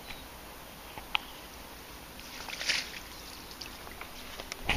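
A brief splash at the water's surface about two and a half seconds in, with a couple of sharp clicks before and after it.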